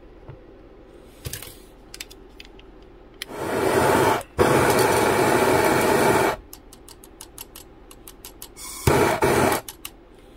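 Handheld gas torch hissing as its blue flame heats a brass stuffing tube for soldering: a long burst of hiss with a brief break in the middle, then a shorter burst near the end, with small clicks and taps between.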